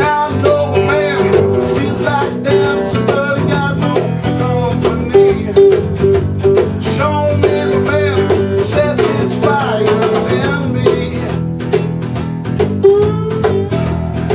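Acoustic blues band playing live: a resonator guitar and an acoustic guitar over bass guitar, with sliding, bending notes on top.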